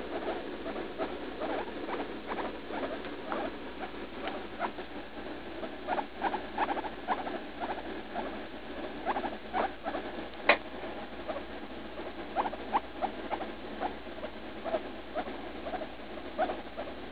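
Guinea pig making many short, soft squeaks in quick irregular succession, with one sharper, louder squeak about ten seconds in. It comes during an episode that the owner takes for pain on passing droppings.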